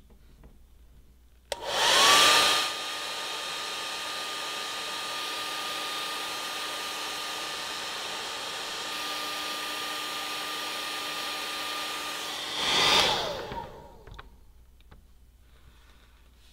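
Handheld hair dryer switched on about a second and a half in, its motor whine rising quickly to a steady pitch over a steady rush of air. It runs for about eleven seconds, louder for a moment just after it starts and again just before it stops, then is switched off and the whine winds down.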